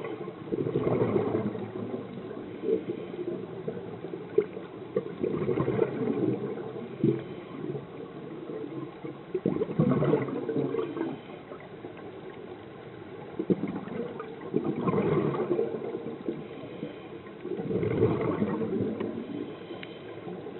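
Scuba diver's breathing heard underwater: bursts of exhaled bubbles gurgling from a regulator about every four to five seconds, five times, with quieter gaps between.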